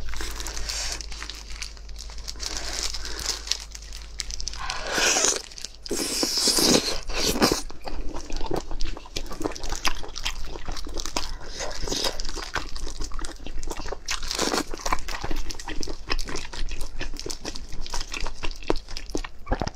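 Close-miked eating of braised shellfish in sauce: plastic-gloved hands pull the pieces apart while wet chewing and dense smacking clicks go on. There are a few louder wet sucking noises about five and seven seconds in.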